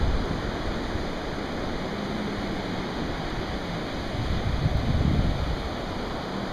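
Surf breaking on a sandy beach, a steady rush of noise, with wind rumbling on the microphone and a louder swell about five seconds in.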